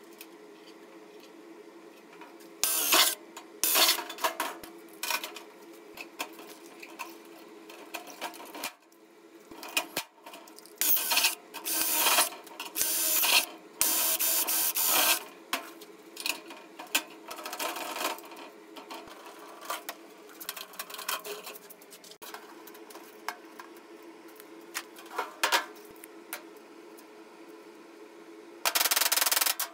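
Cordless drill running in several short bursts against the thin galvanized sheet metal of a can stove, with clicks of metal parts being handled between the bursts. A steady low hum sits underneath.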